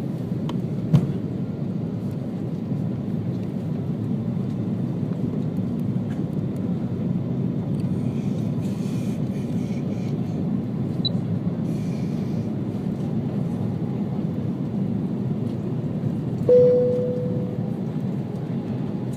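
Steady cabin rumble of an Airbus A330-200 on approach, with a sharp thud about a second in as the landing gear extends. Near the end a single cabin chime sounds and fades.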